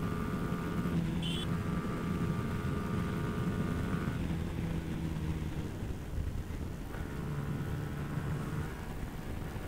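Yamaha R15's 155 cc single-cylinder engine running at steady revs on the move, with wind and road noise. Its pitch drops a little about seven seconds in.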